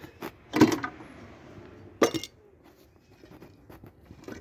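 Metal clinks and knocks of engine parts and tools being handled while the timing gear is taken off a Maruti 800 engine: a few sharp knocks, the loudest about half a second in with a short scraping hiss after it and another about two seconds in, between smaller clicks.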